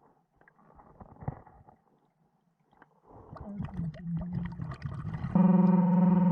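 Underwater gurgling of a diver's breathing and bubbles, then a loud, steady, low buzzing tone that starts abruptly about five seconds in.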